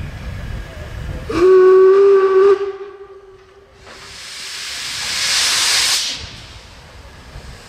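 Steam locomotive whistle blown once, a loud blast of about a second. A couple of seconds later comes a rising hiss of steam venting from the cylinder drain cocks, which stops abruptly.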